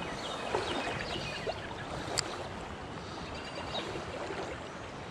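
Shallow creek water running over a rocky bed, a steady rushing wash, with a small sharp click about two seconds in.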